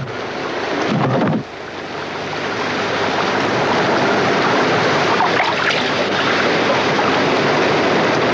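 Open-sea waves and wind around a small rowing boat, with water splashing as the oars work: a steady rush of noise that dips briefly about a second and a half in.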